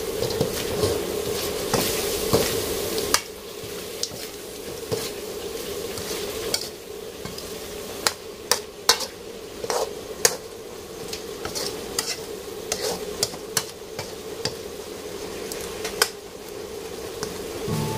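A metal ladle stirring and scraping a sizzling stir-fry in an aluminium wok, with repeated clacks of the ladle on the wok's rim and sides, several loud ones near the middle. A steady hum under it stops about three seconds in.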